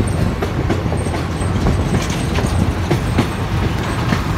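Train running, heard from inside a carriage: a steady low rumble with repeated clacks of the wheels over rail joints.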